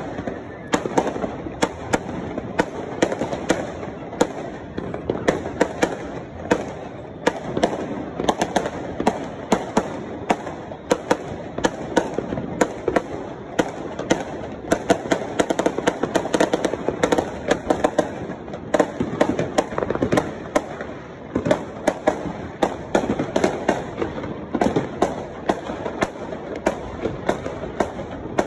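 Fireworks going off all around at once: a dense, unbroken crackle of bangs and pops, several a second, over a constant din of more distant bursts.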